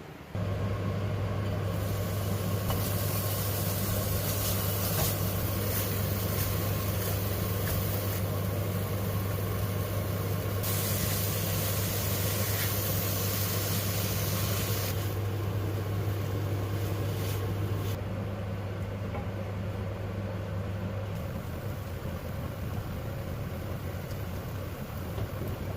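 A steady electric hum from a running appliance motor, switching on abruptly just after the start, with a hissing noise on top from about 2 to 15 seconds in.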